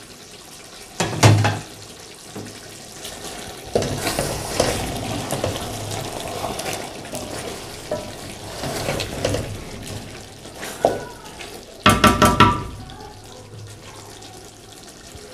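Long wooden spoon stirring simmering meat and potatoes in a large aluminium cooking pot, a wet scraping and sloshing over several seconds. The spoon clatters against the pot about a second in, and more loudly, with a brief metallic ring, near twelve seconds.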